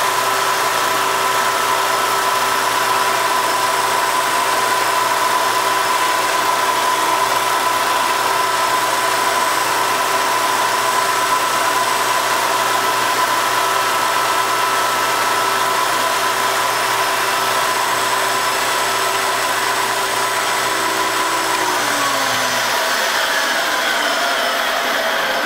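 Inside tool post grinder running at speed, its wheel grinding the jaws of a spinning three-jaw lathe chuck to true them: a steady high whine over a hiss. About 22 seconds in, a whine falls in pitch and a low hum stops, as the grinder motor is switched off and spins down while the lathe keeps running.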